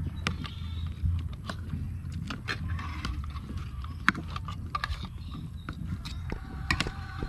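Gamefowl roosters crowing in the background over a low steady rumble, with scattered light clicks of a metal spoon against a plate.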